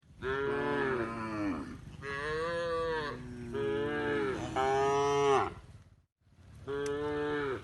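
Domestic cow mooing: a run of long, loud moos, each bending up and then down in pitch, then a short break and one more moo near the end.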